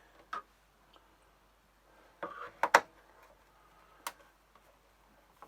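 Scattered sharp clicks and knocks of hand work on a Commodore MPS-801 dot-matrix printer's plastic case as screws are taken out to free the top cover; the loudest is a quick double knock a little under three seconds in, with a single click about four seconds in.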